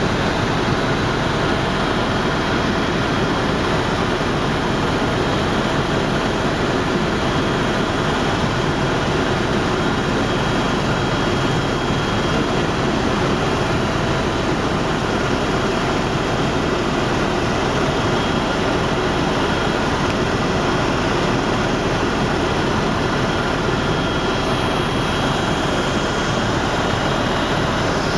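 A helicopter in flight: the engine and rotor make a steady, unbroken noise.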